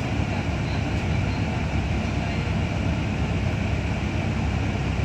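Steady low rumble of a New Routemaster double-decker bus under way, heard inside on the upper rear deck: engine and road noise with no distinct knocks or changes.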